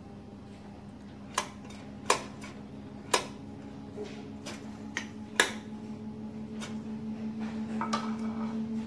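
Several sharp clinks of kitchenware being handled, metal and crockery knocking lightly about eight times at uneven gaps, over a steady low hum.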